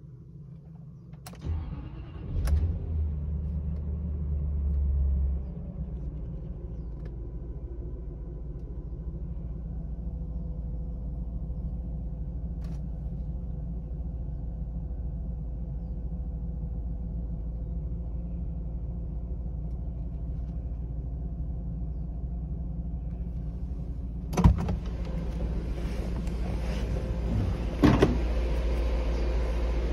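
1998 Jaguar XJR's 4.0-litre supercharged V8 cold-started: a brief crank about a second and a half in, then it catches and runs at a raised fast idle for a few seconds before settling to a steady cold idle. Near the end the driver's door opens and the engine is heard louder, with a sharp knock a few seconds later.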